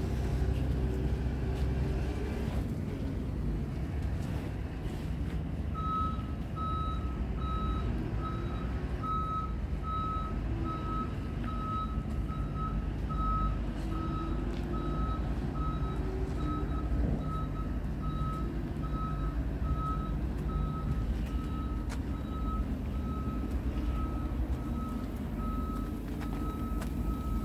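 Diesel engine of a Scania P truck idling with a steady low rumble. About six seconds in, a reversing alarm starts, sounding an even high beep a bit faster than once a second.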